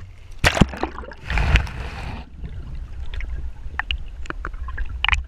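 Seawater splashing over the camera as it goes under the surface, then the muffled underwater sound of moving water: a steady low rumble with scattered small clicks and crackles.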